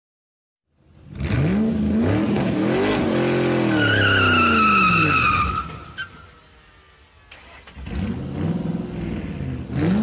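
Sports car engine revving up and back down, with tires squealing for nearly two seconds as the revs fall. After a short pause the engine revs up again near the end.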